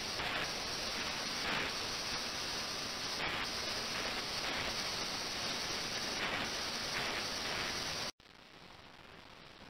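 Ultrasonic tank running: a steady, loud hiss from the water with brief swells every second or so. About 8 seconds in it cuts off abruptly, leaving a much fainter hiss.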